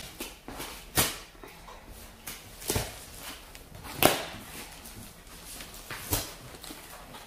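Scissors cutting the packing tape and cardboard of a delivery box: four sharp snips and crackles a second or two apart.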